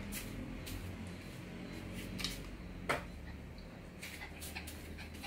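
A few light clicks and taps, the sharpest about three seconds in, over a steady low hum.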